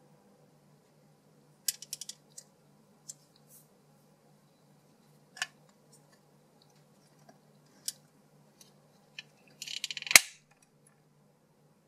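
Light plastic clicks and taps as a hanko stamp is handled and set into a small hinged red plastic case, ending with a quick run of clicks and one sharp snap as the lid is shut near the end.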